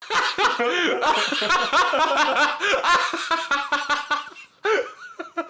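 Several people laughing hard together in quick repeated bursts, tailing off near the end.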